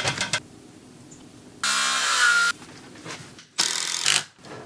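Two short bursts of a cordless drill-driver running into timber studs, the first just under a second long and the second shorter, after a few light knocks on the wood.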